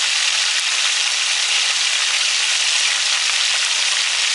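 Whole marinated fish sizzling in hot oil in a pot: a steady, dense frying hiss.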